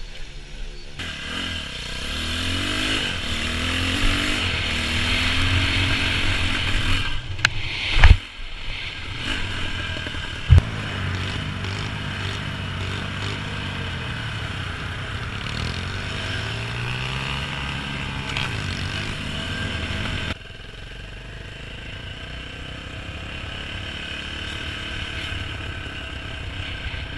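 Small pit bike engines running and revving, their pitch repeatedly rising and falling. There are sharp knocks about eight and ten and a half seconds in, and the sound changes suddenly about a second in and again near twenty seconds.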